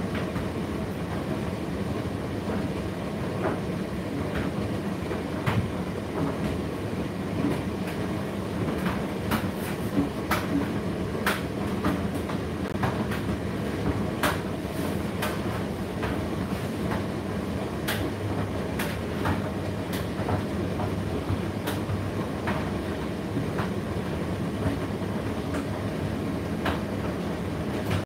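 Indesit IDC8T3 condenser tumble dryer running: a steady low rumble of the motor and turning drum, with irregular sharp clicks and knocks.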